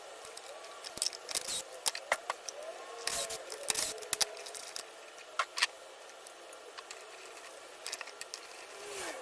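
Scattered small clicks and clinks of hand tools and loose metal and plastic parts being handled while an RC truck's chassis is taken apart, irregular and with short quieter gaps.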